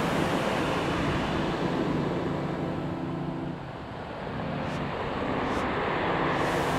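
Sea waves breaking and surf washing up a pebble beach: a steady rush that eases briefly a little past halfway, then swells again toward the end.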